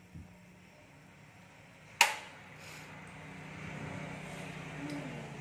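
A metal ladle clacking once, sharply, against a metal soup pot about two seconds in, then soft slurping as soup is sipped from the ladle.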